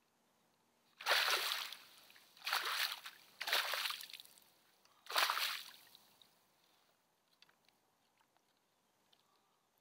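Four short splashes of water at the kayak's side from a landing net holding a caught bass, each splash fading quickly, then only faint small clicks.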